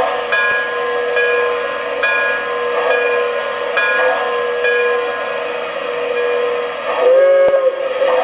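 Model steam locomotive's onboard sound system ringing its bell, about one stroke a second, over a steady hiss. Near the end a short steam whistle blast sounds, the loudest part.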